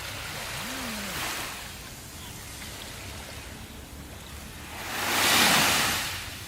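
Sea waves washing onto a shore: a small wave breaks about a second in, then a bigger one swells up, peaks and falls away near the end.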